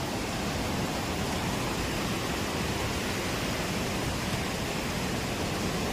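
Steady rushing of a fast-flowing mountain waterfall beside the trail.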